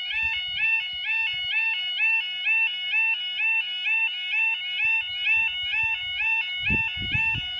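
Railway level crossing's electronic two-tone 'yodel' warning alarm sounding while the red road lights flash: a warbling pair of tones stepping up in pitch, repeating about twice a second, warning that a train is approaching and the barriers are about to lower. A few low thumps come in near the end.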